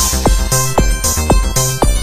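Electronic dance music: a steady kick drum about twice a second, with bright hi-hat hiss between the beats and short synth hits that fall in pitch.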